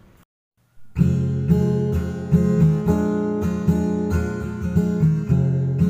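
Background music of strummed acoustic guitar chords, starting about a second in after a brief silence.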